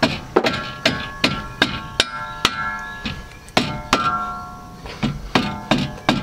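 Repeated mallet blows on the lower strut bolt of a car's front suspension, about two to three a second with a couple of short pauses, each blow followed by a metallic ring. The blows are knocking a stuck strut-to-knuckle bolt out.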